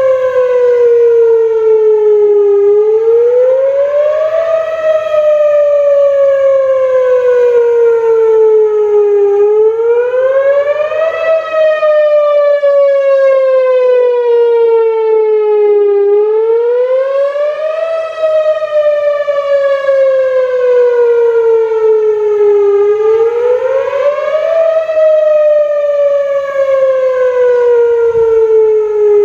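Whelen Vortex R4 rotating outdoor warning siren sounding its wail tone on test. The pitch climbs over about two seconds and then slides slowly back down, repeating about every six and a half seconds.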